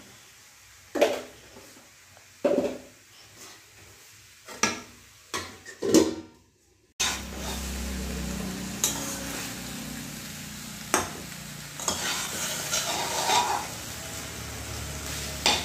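Metal spatula clanking and scraping against a metal kadai while broccoli, tomato and capsicum are stir-fried. After about seven seconds a steady sizzle of the frying vegetables runs under the clinks.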